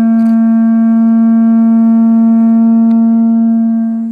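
Pū (Hawaiian conch shell trumpet) blown in one long, steady note, which begins to fade near the end.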